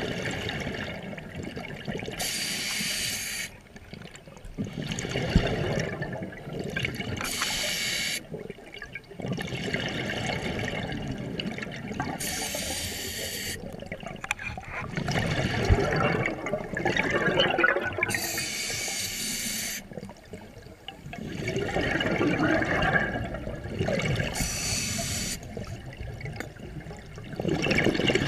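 Scuba diver breathing through a regulator underwater: a short hissing inhale about every five seconds, each followed by a longer burbling rush of exhaled bubbles.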